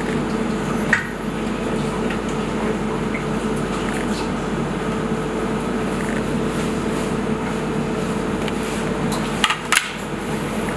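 Steady hum of kitchen ventilation, with a light tap about a second in and two sharp clicks near the end.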